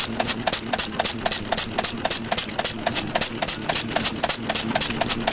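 Antique stationary engine running, its moving parts making a rapid, steady train of sharp mechanical clicks, about six or seven a second.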